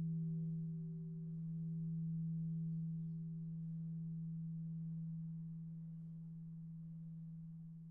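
Church bell ringing on after it is no longer struck: a steady low hum note with a fainter higher tone above it, swelling slowly in loudness and gradually fading away.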